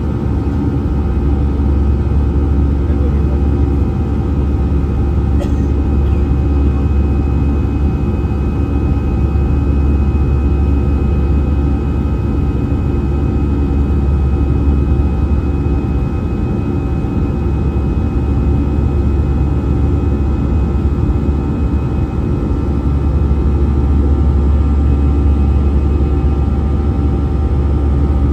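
Inside the cabin of an Airbus A320-216 climbing after takeoff, its CFM56 turbofan engines running at climb thrust: a steady deep rumble with several steady whining tones over it.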